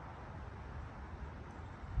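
Faint, steady background noise with a low rumble and a soft hiss, with no distinct events.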